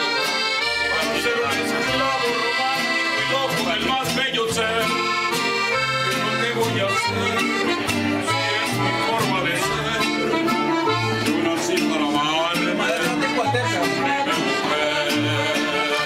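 Live band playing an instrumental passage of a Latin song: an accordion carries the melody over guitar and a stepping bass line.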